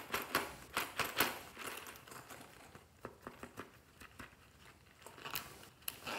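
Hands handling two soft plastic toy coin purses: a run of sharp clicks, taps and crinkles, densest in the first second and a half, then sparser, with a zipper starting to be pulled open near the end.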